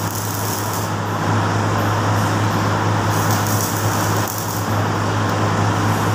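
Stick (arc) welding on a steel tube frame: the electrode arc crackling and sizzling steadily, over a steady low hum.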